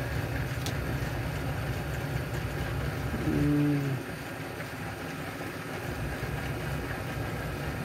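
Steady low machine hum, with a book page being turned near the start and a short hummed voice a little over three seconds in.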